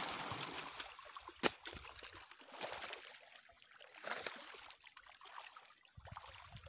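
Water splashing and trickling, with small clicks throughout and one sharp click about a second and a half in.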